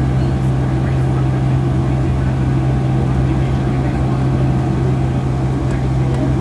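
Jet engines of a Boeing 757-300 heard inside the passenger cabin: a steady, unbroken drone with a strong low hum under a wide rushing noise.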